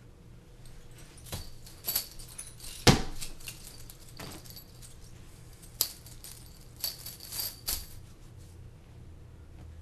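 Metal chain links rattling and clinking in about eight separate jangles, the loudest about three seconds in with a dull knock under it.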